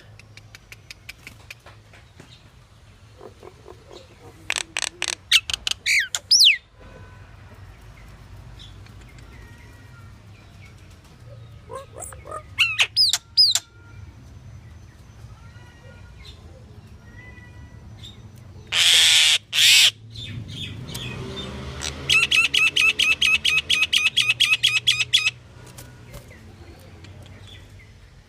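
Pied myna (Asian pied starling) calling in scattered bursts of quick chattering notes, some ending in upward whistled glides, then two loud harsh squawks and a long fast run of repeated rattling notes, over a steady low hum.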